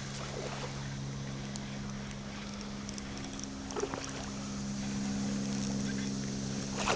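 A steady low mechanical hum of an engine running, holding a constant pitch, with a brief dip about four seconds in.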